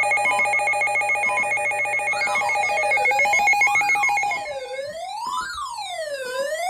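Electronic emergency alert tones: a steady trilling, ring-like tone pattern, joined about two seconds in by a siren-like tone that sweeps up and down about once every second and a half. The trilling stops a little past the halfway point, leaving the sweeping siren tone.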